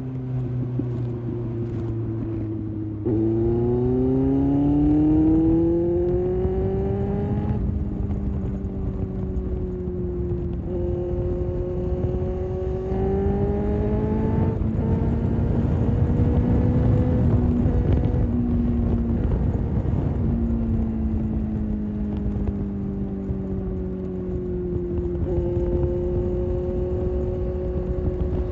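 Kawasaki ZX-6R's inline-four engine pulling through the gears: the pitch climbs, drops at each shift, and later falls off and jumps back up. Wind rushing over the microphone runs underneath.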